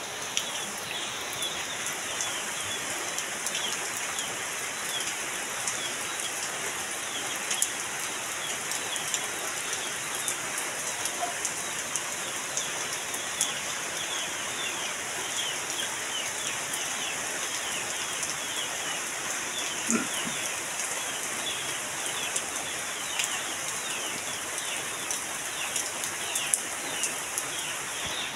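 Heavy rain falling steadily on a muddy yard and leafy trees, with scattered louder drop hits. Many short, high chirps from birds run through it.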